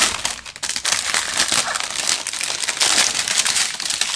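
Thin plastic packaging crinkling in irregular bursts as a strip of sealed bags of diamond-painting drills is slid out of its clear plastic sleeve and handled.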